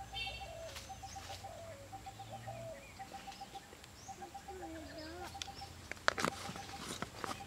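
Birds calling in the open: a quick run of short, even notes repeating about once a second, with lower wavering calls between. A few sharp clicks come about six seconds in.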